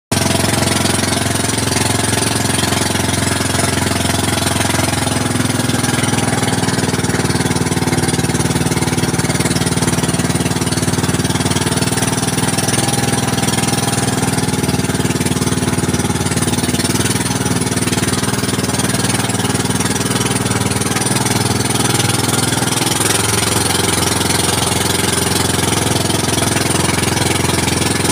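Engine of a motorized outrigger boat (bangka) running steadily under way, a loud unbroken drone, its note changing slightly about three-quarters of the way through.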